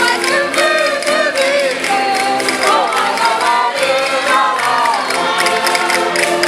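Minho folk singing by women, accompanied by concertinas (diatonic button accordions): a gliding vocal melody over steady reed chords and a regular beat.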